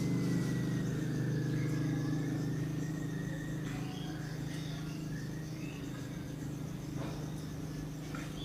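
Birds chirping over a low engine hum that slowly fades away. A thin, wavering high whistle holds for the first three seconds or so, then short chirps come and go.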